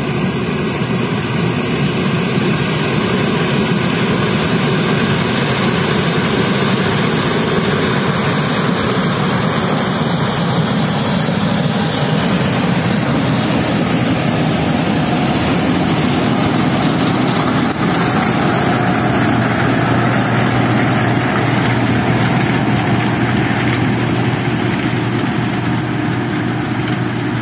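Case IH 2388 Axial-Flow combine running steadily under load while harvesting corn, its engine and threshing machinery loud, with the corn header pulling in and snapping the standing stalks.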